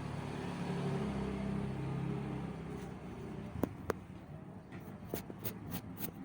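An engine hum, steady for about three seconds and then fading away, followed by several sharp clicks.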